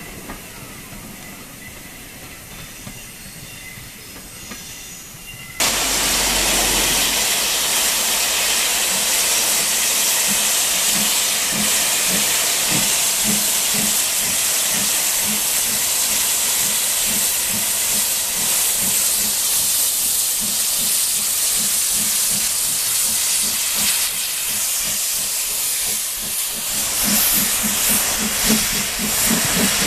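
Steam locomotive on the move: at first a train running faintly, then, about five seconds in, a sudden loud hiss of steam with a regular beat of exhaust chuffs running through it, the chuffs growing stronger near the end.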